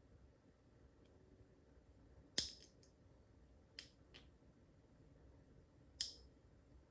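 Small sharp metallic clicks from lock picks and a tension wrench in a Master Lock 410 padlock, with three louder clicks spaced about one and a half to two seconds apart and a few fainter ticks. The tension has been let off after a pin was overset, so the lock is being reset.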